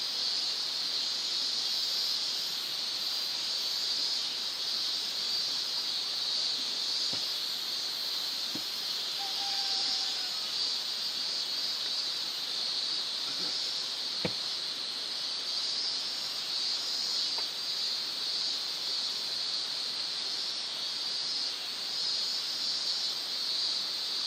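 Steady high-pitched outdoor hiss, with a few faint clicks and a short chirp about ten seconds in.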